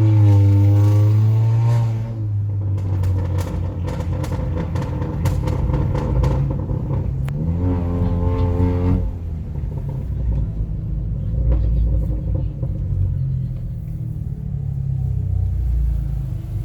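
Honda Accord 1.5-litre turbo four-cylinder running through a PRL front pipe and downpipe with the muffler and resonator deleted, shortly after a cold start. The revs fall away about two seconds in, and one brief blip of the throttle near the middle rises and drops back. Otherwise it idles with a loud, deep drone.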